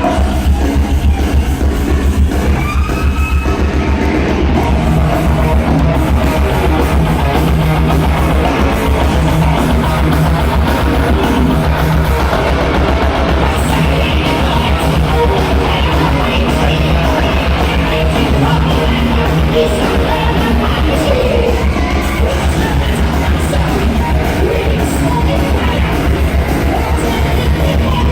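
Heavy metal band playing live at full volume: a fast, pounding drum beat under distorted electric guitars, with a voice singing and yelling over it.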